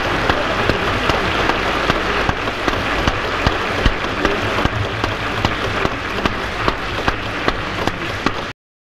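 Audience applauding: a dense, steady clatter of many hands clapping that cuts off abruptly near the end.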